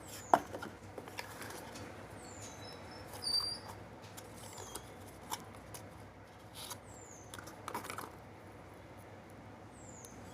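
Scattered light clicks and taps of small objects being handled, with a sharp click just after the start and a few more near the middle. Short high chirps falling in pitch recur every couple of seconds.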